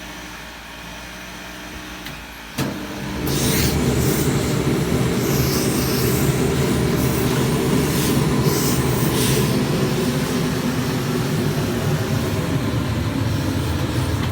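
A click, then a machine motor starts and runs steadily, with several short hissing bursts over it in the first half.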